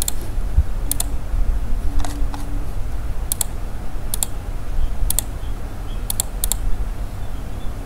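Scattered sharp clicks of a computer mouse and keyboard, about one a second and some in quick pairs, over a steady low hum.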